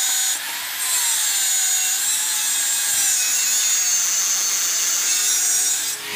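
Electric angle grinder with a cut-off disc cutting through a steel car leaf spring: a steady high grinding hiss over the motor's whine, which wavers in pitch as the load changes. It eases briefly about half a second in and drops away near the end as the disc lifts off the steel.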